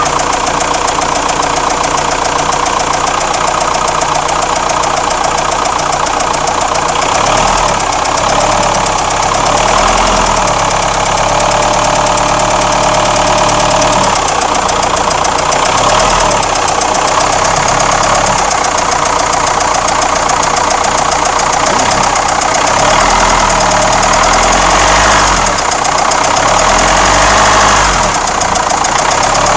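Renault Espace IV's 2.2 dCi four-cylinder turbodiesel running with a knocking clatter, revved up and let back down several times.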